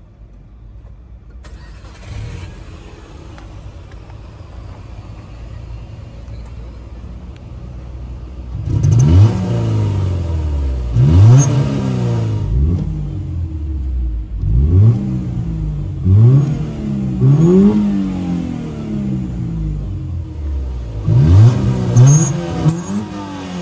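2003 Subaru Forester's 2.0-litre naturally aspirated flat-four boxer engine through its stock exhaust, idling steadily and then revved in about eight quick blips from about nine seconds in, with a slight whistle at high revs.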